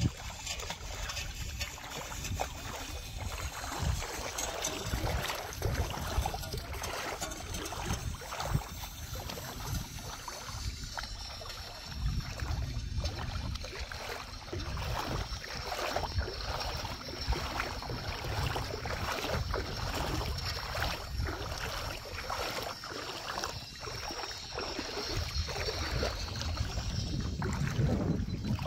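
Feet wading through shallow sea water, with irregular splashes and sloshing, and gusts of wind buffeting the microphone.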